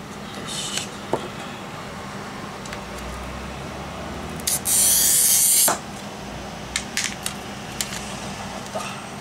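Glass cutter scoring a glass plate along a steel ruler: one loud, scratchy hiss lasting about a second, a little past the middle. Light clicks and taps follow as the ruler and plate are shifted.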